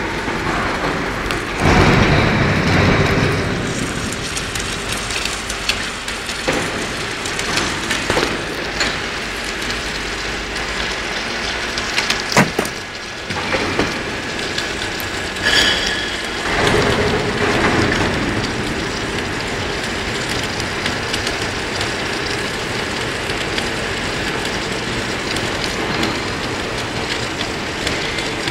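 Submerged arc welding running: a steady crackling hiss, broken by a few louder noisy swells and sharp knocks, the sharpest about twelve seconds in.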